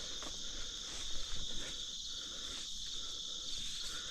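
Steady, high-pitched chirring of an insect chorus, crickets or katydids, with a few faint knocks about a second in.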